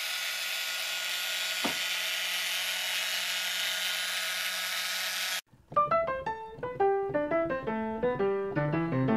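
A steady hissing noise with faint held tones, crossed by a brief falling sweep a little under two seconds in, cuts off suddenly about five and a half seconds in. After that comes a keyboard theme tune of quick, piano-like notes.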